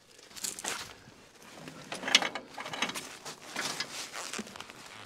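Irregular rustling, scraping and a few light clicks of rubber hydraulic hoses being pulled and routed back through a tractor's front frame by gloved hands.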